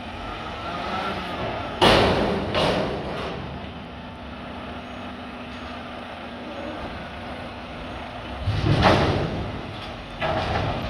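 Mack front-loader garbage truck with a McNeilus body running steadily, with two loud metal bangs about two seconds in and a louder surge of noise near the end.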